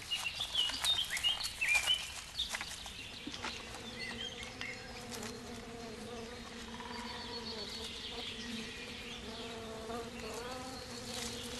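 Honeybees of a Bashkir log hive buzzing in a steady hum with a low and a higher note, with a bee flying close by and bending the pitch about ten seconds in. A few short high chirps come in the first two seconds.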